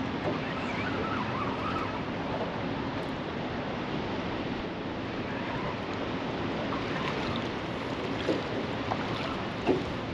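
Steady rush of wind and moving water, with a few short sharp clicks near the end.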